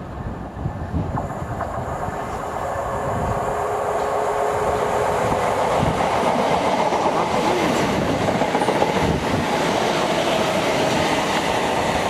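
Train running through the station, its rolling noise building over the first few seconds and then holding steady. Gusts of wind buffet the microphone.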